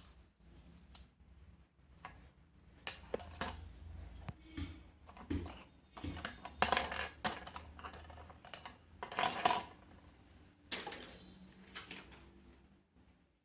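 Small hard objects clicking and clattering as they are handled, in an irregular run of light taps with a few louder clattering scrapes.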